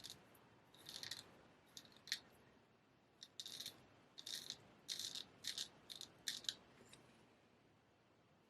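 Straight razor scraping through beard stubble in about a dozen short, irregular strokes, each a brief faint rasp.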